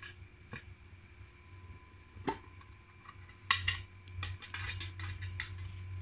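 Small metal tins and a stainless steel dog tag being handled: scattered clicks and clinks, a sharp one a little after two seconds, the loudest about three and a half seconds in, then a quick run of light clattering.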